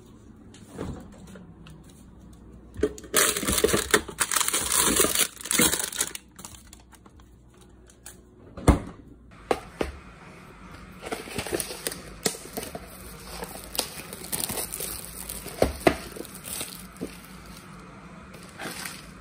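Food packaging handled by hand: a loud stretch of plastic crinkling after about three seconds, one sharp knock about halfway through as a container meets the counter, then scattered crinkles and taps on a plastic-wrapped cup-noodle bowl.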